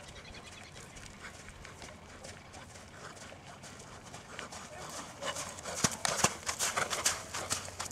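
Horse's hooves striking sand arena footing at a trot, faint at first and much louder about five seconds in, a quick run of sharp thuds.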